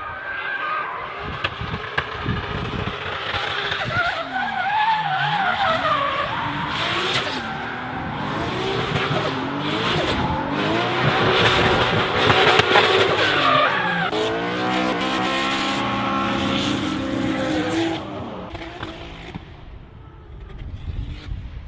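Nissan Skyline GT-R R33's RB26DETT twin-turbo straight-six revving up and down through a drift, with tyres squealing. The engine pitch rises and falls repeatedly, the tyre noise is loudest through the middle, and both fall away near the end.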